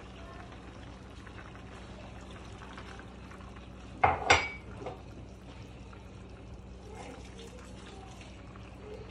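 A pan of cabbage and pork simmering on a gas stove with a steady low hiss. About four seconds in, metal kitchenware clatters twice in quick succession with a short ring, followed by a lighter knock.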